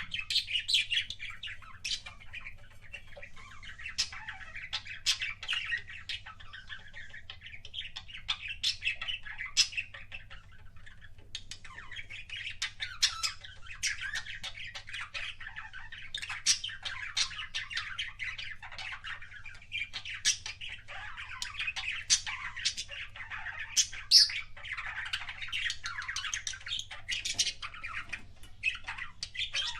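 Budgerigars chattering and warbling continuously, with sharp clicks and squawks mixed in and a short lull about eleven seconds in.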